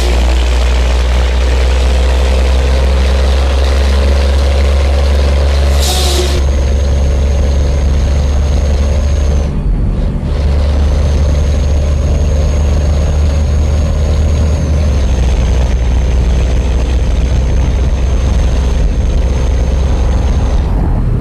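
Scania truck engine rumbling loudly and steadily under load, with a high whistle over it. A short burst of air hiss comes about six seconds in, and the sound dips briefly about ten seconds in.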